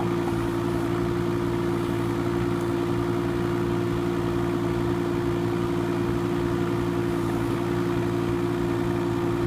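Kubota K008-3 mini excavator's small three-cylinder diesel running at a steady speed while the boom and bucket are worked hydraulically; an even, unchanging drone.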